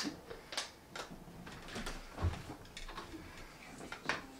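Faint scattered clicks and knocks of people moving about in a small room, with one low thump a little past halfway.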